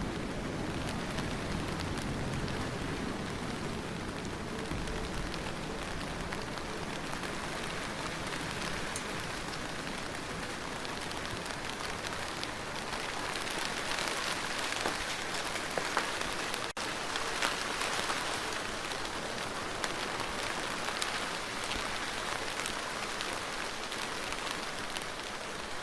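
Steady rainstorm without thunder: an even hiss of rain with individual drops ticking on surfaces, growing a little brighter partway through, with a momentary dropout about two-thirds of the way in.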